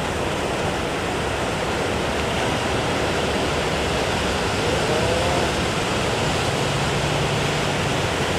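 Big waves breaking at a river mouth: a loud, continuous rush of surf with no let-up.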